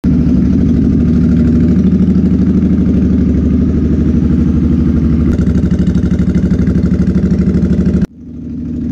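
Cruiser motorcycle engine idling with a steady, even pulse, cutting off abruptly near the end.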